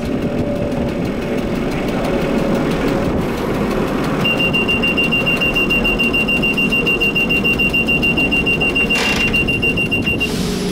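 A 1960 Bern Standard tram running along the track, heard from the driver's cab. About four seconds in, a steady high-pitched tone joins the running noise, pulsing rapidly, and stops shortly before the end.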